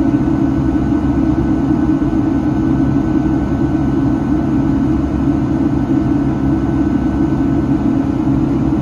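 Steady jet engine and airflow noise inside the cabin of a Boeing 757-300 climbing out after takeoff, heard from a window seat beside the wing engine: a loud, even drone with a strong low hum.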